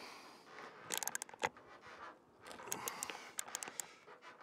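Hand ratchet socket wrench clicking in short quick runs as it is swung back between strokes while tightening a lag bolt. There is one run about a second in and another from about two and a half seconds to near four.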